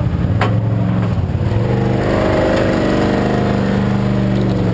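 Rally quad bike's engine running under load as it is driven up loading ramps, its note growing stronger and holding steady from about two seconds in. A sharp knock about half a second in.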